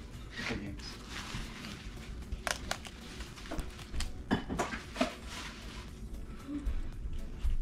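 Red-handled fillet knife cutting a fillet off a flounder on a cutting board: soft slicing and handling sounds with a few sharp clicks and taps about halfway through.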